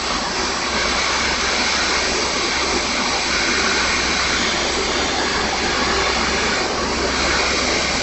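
A steady rushing of blown air from an electric bench blower, such as a hot-air rework station or fume extractor, which gets a little louder about a second in.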